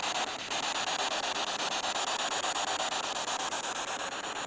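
Spirit box sweeping the radio band: a steady hiss of radio static, finely chopped as it steps rapidly from station to station.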